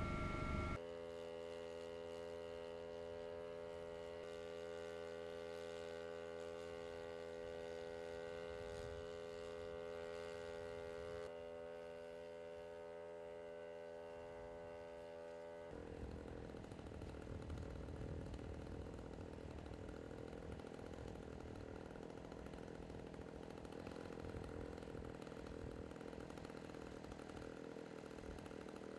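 An engine running steadily: an even, unchanging drone that gives way about 16 seconds in to a rougher, noisier engine sound.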